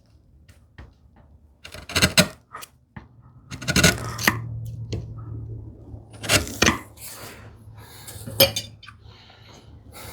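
Sharp taps and knocks of a hand tool on wood, mostly in pairs about two seconds apart, as a small filler piece is worked into a groove.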